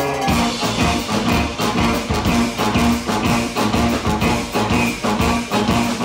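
Live band of saxophone, trombone, electric guitar, keyboard, electric bass and drum kit playing. A held chord breaks about a third of a second in, and the full band comes in with a steady drum beat under a repeating bass line.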